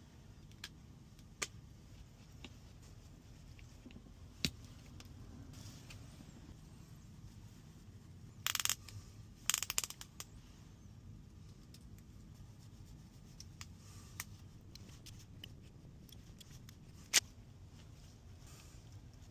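Small sharp clicks and taps of tools and parts being handled during an iPhone screen repair, with two short bursts of scraping about eight and a half and nine and a half seconds in, over a low steady hum.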